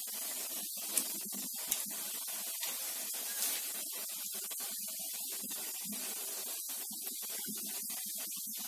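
Chakli (rice-flour spirals) deep-frying in hot oil in an iron kadai: a steady sizzle with a few sharp pops.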